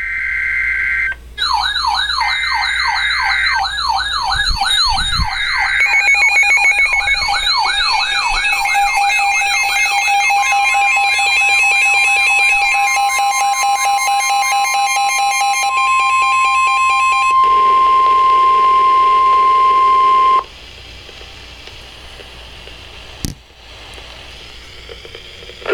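Emergency Alert System-style alarm: short screeching data bursts, then a fast wailing siren sweeping up and down, joined by several steady alert tones and a buzz stacked on top of each other. It all cuts off about twenty seconds in, leaving a low hiss and a single click.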